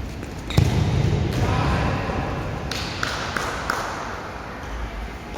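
A futsal ball kicked with a single hard thud about half a second in, with players' voices and a few short squeaks around three seconds in.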